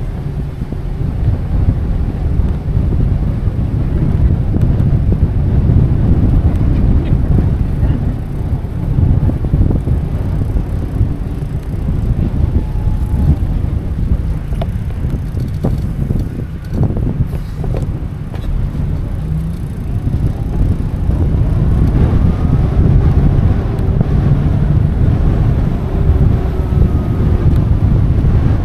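Steady low rumble of wind buffeting the microphone of a moving e-bike rider, with the ride's road noise underneath.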